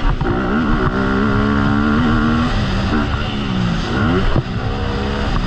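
2020 Honda CRF250 dirt bike's single-cylinder four-stroke engine revving up and down under riding, its pitch climbing and falling several times, with a sharp knock about four and a half seconds in.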